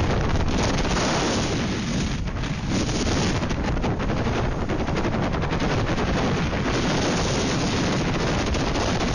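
Hurricane-force wind buffeting the microphone: a loud, continuous rush with rapid crackling from the gusts.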